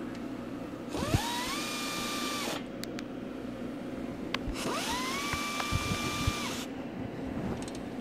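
Air ratchet driving the front brake caliper bolts tight, run in two bursts of a second and a half to two seconds. Each burst has a hissing rush of air and a whine that climbs quickly as the motor spins up, then holds steady before stopping.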